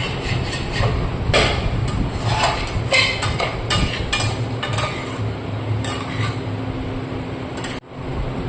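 A metal spoon or spatula stirring a vegetable curry in a cooking pan, with irregular clinks and scrapes against the pan over a steady low hum.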